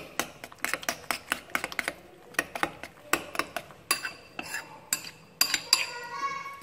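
Metal spoon clinking against a ceramic bowl while beating raw egg with minced pork and spring onion: rapid, uneven clinks with short pauses.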